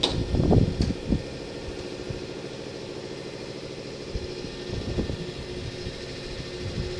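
An engine idling with a steady hum. A few dull knocks come about half a second and a second in.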